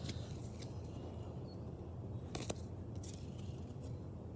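Pokémon trading cards being handled and flicked through in the hands, cardstock sliding and snapping with a few light clicks, the sharpest about two and a half seconds in, over a low steady hum.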